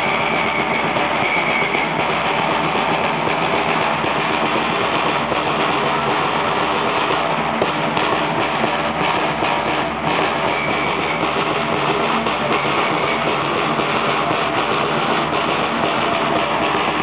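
Drums of a Romanian bear-dance troupe (jocul ursului) beating without a break, a dense and steady din of music, with a few short high steady tones.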